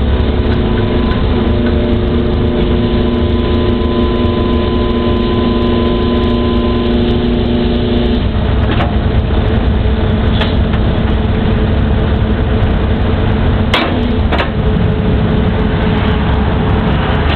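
Excavator's diesel engine running steadily, with a hydraulic whine of several steady tones for the first eight seconds or so that then stops. Two sharp knocks about half a second apart come about three-quarters of the way through.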